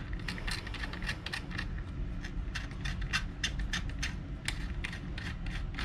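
Small hand tap being turned in a brass threaded insert to clear leftover 3D-printed plastic from the threads: a run of irregular small clicks and creaks, several a second.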